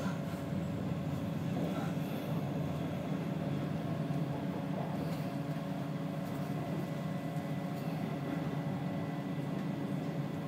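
Steady rumble of an electric passenger train running along the line, heard from inside the carriage, with a faint steady whine above it.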